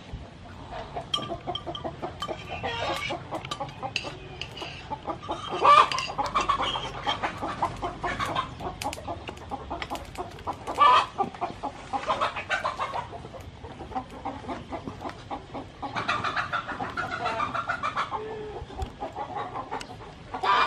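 Chickens clucking in repeated bursts of rapid notes, with a couple of louder calls among them.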